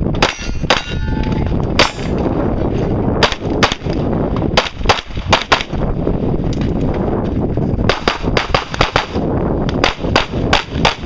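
Handgun shots fired during an action-shooting stage: about twenty sharp reports, some in quick pairs and runs, with pauses of a second or two between groups, over a steady background noise.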